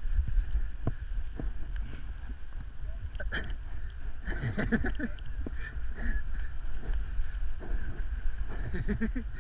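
Wind rushing over a paraglider's pole-mounted camera microphone in flight, a steady low rumble.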